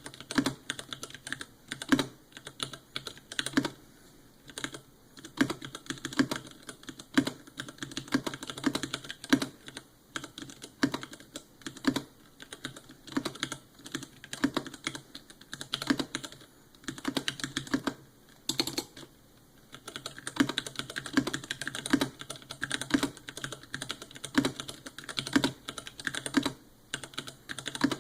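Typing on a custom 60% mechanical keyboard with stock Cherry MX Clear tactile switches: a steady run of key clacks at uneven pace, with a short pause about two-thirds of the way through.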